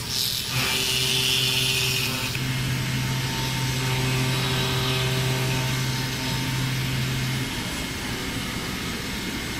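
WFL Millturn CNC machine milling steel: a steady machine hum with a high cutting hiss that stops abruptly a couple of seconds in. The hum goes on, dropping a little about three-quarters of the way through.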